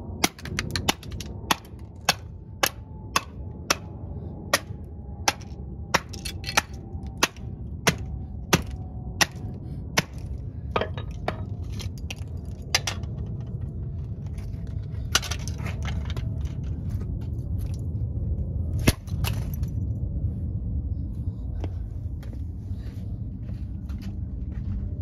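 Hammer knocking sharply and repeatedly, about two knocks a second for the first thirteen seconds, then only now and then, with one loud knock about nineteen seconds in, over a steady low rumble.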